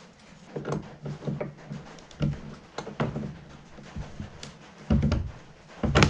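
Irregular knocks and clunks, roughly one or two a second, as of hard parts being handled and set down, with a louder clunk about five seconds in.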